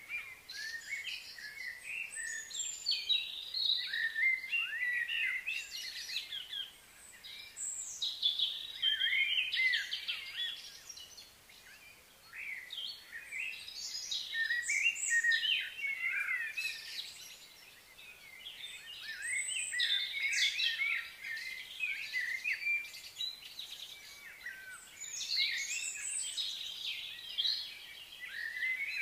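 Many birds chirping and singing at once in a busy, overlapping chorus of high, quick chirps and whistles, swelling and easing in waves.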